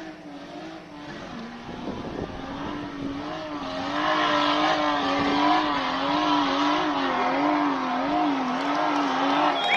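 A 4x4's engine revving hard under load. Its pitch climbs, then wavers rapidly up and down as the revs rise and fall.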